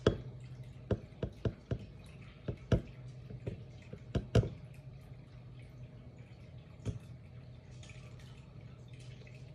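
Liquid dripping from a glass bottle into a tall glass of milky liquid: a string of irregular drops over the first four or five seconds, one more a couple of seconds later, then a faint thin trickle.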